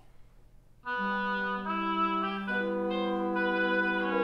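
Woodwind quintet playing: after a brief hush, the ensemble comes in about a second in with held chords, the harmony stepping to new notes every second or so.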